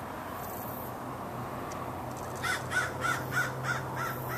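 A bird calling in a quick run of short, harsh calls, about three a second, starting about two and a half seconds in.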